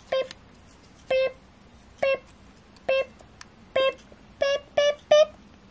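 Self-timer countdown beeps for a photo: five short high beeps about a second apart, then three quicker, slightly higher beeps near the end as the timer runs out.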